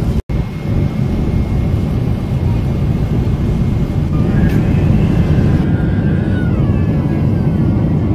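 Steady low rumble of a Boeing 777's jet engines and airflow, heard inside the passenger cabin.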